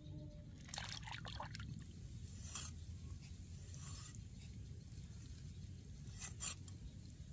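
Raw chicken wings being handled and a large knife blade worked along them: a few short scrapes and rustles, a cluster of them about a second in and single ones later, over a low steady rumble.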